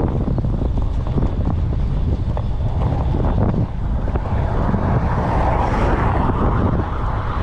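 Wind buffeting a bicycle-mounted GoPro's microphone while riding, a heavy gusty rumble with road noise under it. About halfway through, a rushing noise swells and then fades near the end.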